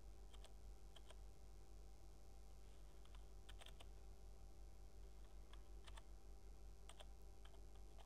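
Computer keyboard keys pressed one at a time: faint, irregular keystrokes in small clusters with pauses, as a number is typed in digit by digit.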